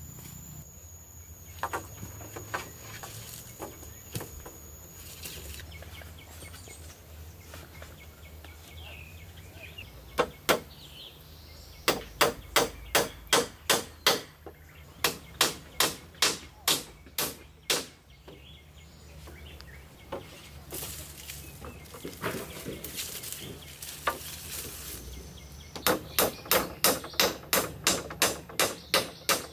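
Repeated sharp blows of a hand tool, in runs of about three strikes a second with pauses between runs.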